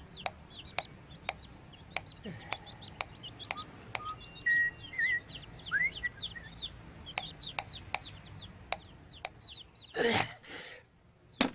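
Sound effects from an animated story's soundtrack: many short, high chirps like birdsong over a steady tick about twice a second, with a louder, noisy sound about ten seconds in.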